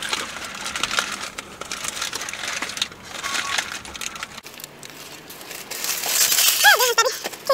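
Foil and paper burrito wrapper crinkling and rustling as it is handled while eating.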